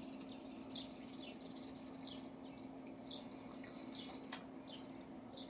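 Quiet, repeated short high chirps, each falling in pitch, about twice a second, over a steady low hum, with one sharp click about four seconds in.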